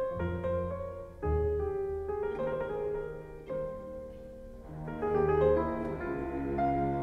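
Slow, calm background music led by piano, its notes and chords changing about once a second over sustained low tones.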